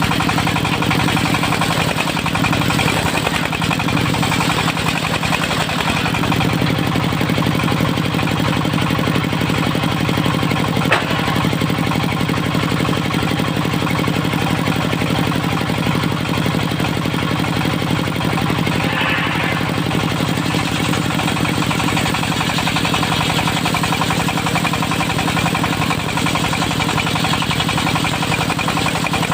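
Dongfeng diesel engine of a portable circular sawmill running steadily, with one short sharp knock about eleven seconds in.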